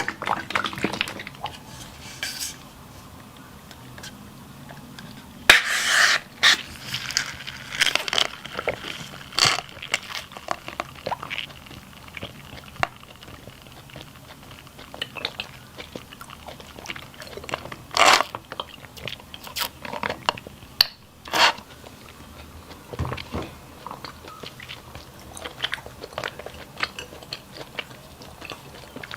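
Close-miked eating: irregular chewing and biting with crunches and sharp clicks. A few louder bursts come about 6, 18 and 21 seconds in.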